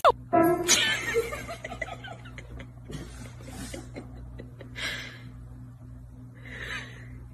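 A person laughing softly in a few short, breathy bursts over a steady low hum.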